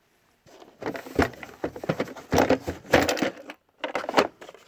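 Metal hand tools clinking and clattering as they are handled in a steel tool box drawer: a quick, uneven run of knocks and clicks, with a short pause near the end.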